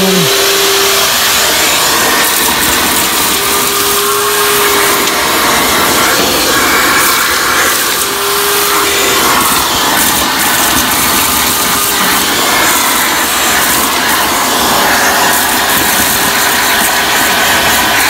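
Vacuum cleaner running steadily, its hose and nozzle sucking loose rust and dirt off the floor of a furnace's blower compartment.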